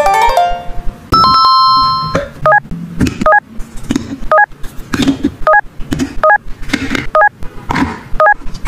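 A quick falling run of electronic tones, then a held electronic ring about a second in. After that come short electronic beeps about once a second, mixed with light plastic knocks as hollow plastic toy fruit is dropped into a plastic basket.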